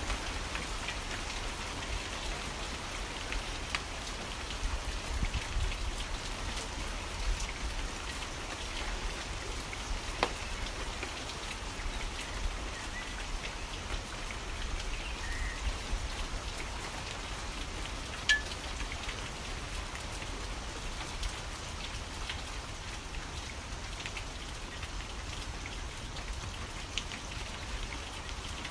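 Steady rain falling, with scattered individual drops ticking sharply over the even hiss. The clearest drop lands about two-thirds of the way through.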